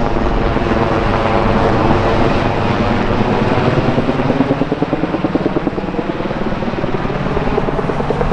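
Bell UH-1Y Venom helicopter flying past, its four-bladed main rotor beating in a rapid, even pulse.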